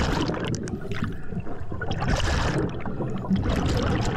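Underwater sound of a diver's exhaled air bubbling out of the regulator on a surface-supplied hookah system, over a steady rush of water. A louder, hissier burst of bubbling comes about two seconds in.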